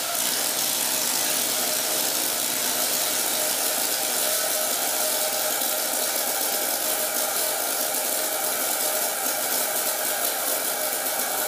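Steady, even hiss-like noise with a few faint held tones beneath it, unchanging throughout, with no distinct events.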